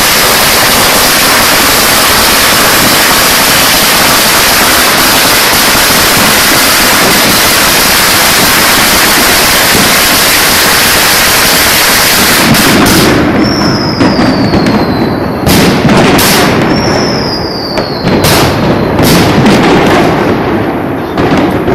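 Fireworks going off at close range: about twelve seconds of dense, unbroken noise, then separate loud bangs. Two whistles, each falling in pitch and lasting a second or so, come between the bangs.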